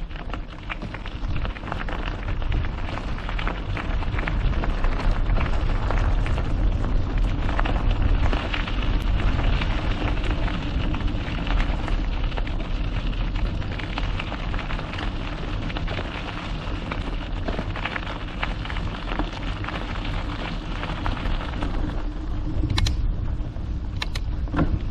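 Mountain bike riding over a stony trail: tyres crackling and crunching on the surface, with small rattles from the bike and wind rumbling on the camera's microphone. The crackle eases near the end, leaving a few sharp clicks.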